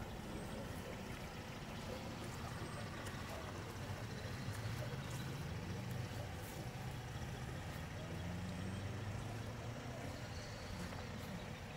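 Low, steady vehicle engine rumble that swells a little midway and eases off again, with faint scattered ticks over it.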